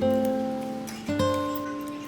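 Background music: a plucked acoustic guitar, with new notes struck at the start and again about a second in.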